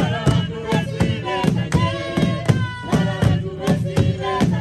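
Group singing of a traditional Shangaan song over a steady drum beat.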